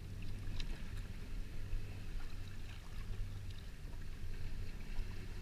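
Water lapping and sloshing around a small boat, over a steady low rumble, with a few faint splashes.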